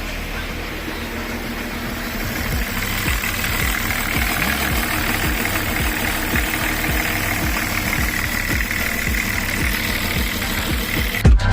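BMW M51D25 2.5-litre inline-six turbodiesel idling steadily with diesel clatter, running again now that the broken pin joining the crankshaft pulley to the crankshaft sprocket has been properly repaired.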